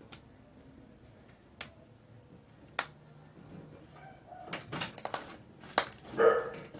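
Slime being squeezed and stretched by hand, giving sharp sticky clicks and pops, sparse at first and then coming thick and fast in the second half. Near the end there is a short, louder sound.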